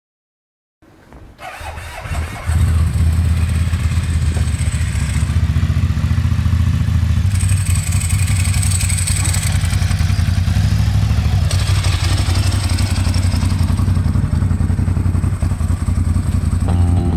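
Motorcycle engine starting about a second in, then running steadily and loudly.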